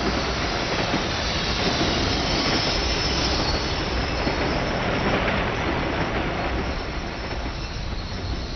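A loud, steady rushing noise with no clear pitch, starting abruptly just before and easing slightly near the end.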